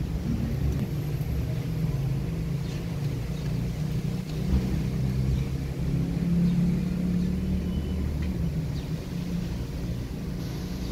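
A low, steady engine-like rumble, swelling slightly about six seconds in.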